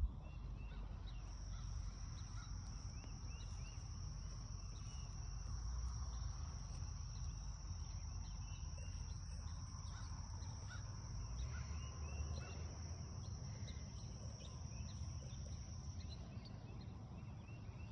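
Steady high-pitched insect trilling that sets in about a second in, with scattered short bird chirps and a low rumble underneath.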